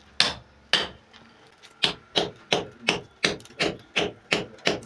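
Hammer striking a chisel against a masonry wall, cutting a channel for a cable line. There are two blows, a short pause, then a steady run of about three blows a second.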